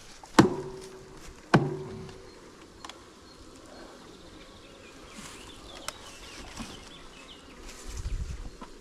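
Honeybees buzzing around an open hive, with two sharp knocks near the start, about a second apart, and a brief low rumble near the end.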